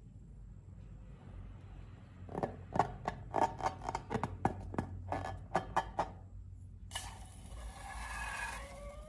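Slime being handled: a quick run of sharp, sticky clicks and pops over a few seconds, then a steady rubbing, scraping noise.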